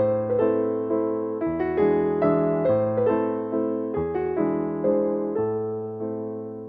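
Background piano music: gentle chords and melody notes struck and left to ring, over slow-changing bass notes, fading away near the end.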